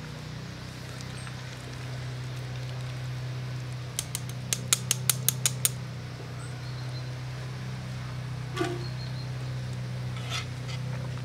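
A small electric motor running with a steady hum. About four seconds in, a quick run of sharp clicks, roughly five a second, lasts under two seconds.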